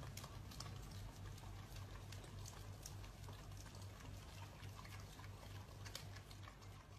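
Faint wet licking and lapping as two dogs lick an ice cream cone: a run of small irregular smacking clicks, over a low hum that pulses a few times a second.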